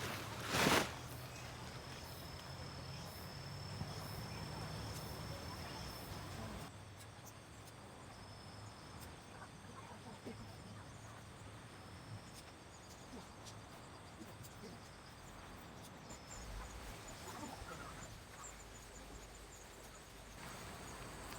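Insects singing: a steady high-pitched buzz for the first several seconds, then fainter scattered high chirps. A sharp knock about a second in is the loudest sound.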